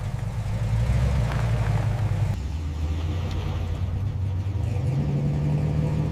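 Deep car engine rumble, changing abruptly a little over two seconds in, with the pitch stepping up near the end.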